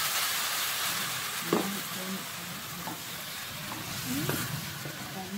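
Raw chicken pieces sizzling in hot oil and fried onion-spice masala in a pan, with a spoon scraping as they are stirred. The sizzle is loudest in the first second and eases a little, with a few separate scrapes later on.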